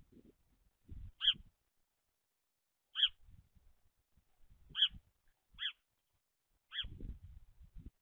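House sparrow chirping: five short, separate chirps spaced a second or two apart. Low thumps and rustling come between them, most near the end.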